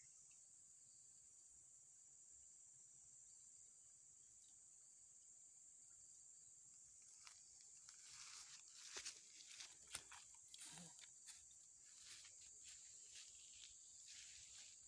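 Faint, steady high-pitched insect buzzing. From about halfway on, irregular rustling, scuffing and clicking of a person moving on the grassy bank and handling a spinning rod.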